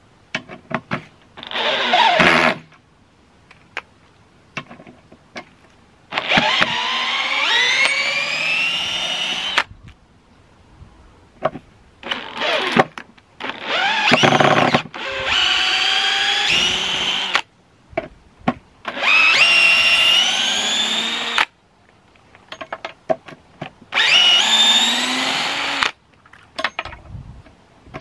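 Cordless DeWalt drill/driver working screws in a wooden plank through a magnetic quick-change bit holder: about six separate runs of motor whine, each rising in pitch as the motor speeds up. Short clicks and taps come in the gaps between runs.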